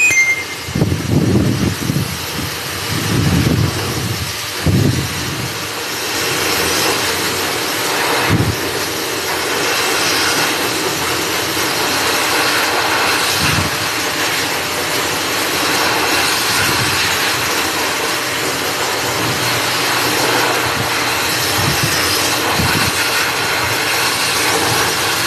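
Pet grooming blower (high-velocity dryer) running steadily, a loud rush of air from its hose blown through a dog's thick coat, with low buffeting gusts in the first few seconds and once more about eight seconds in.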